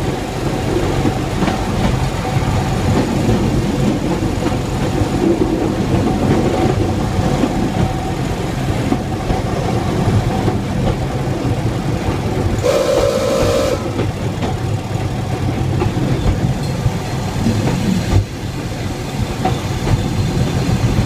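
Replica NZR Model T Ford railcar running along the track, heard from inside the cab: a steady engine drone with wheel rumble. One short horn blast sounds a little past halfway, and a single knock comes a few seconds later.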